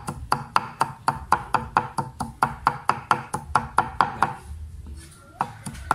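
Cleaver chopping red chillies on a round wooden chopping board: quick, even knocks, roughly four a second, that stop for about a second near the end and then start again.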